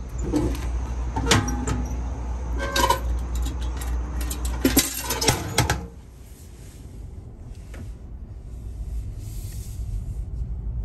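Clanks and knocks of a metal key drop-off box, its pull-open flap being worked, over a steady low rumble. About six seconds in the rumble cuts out and it goes much quieter.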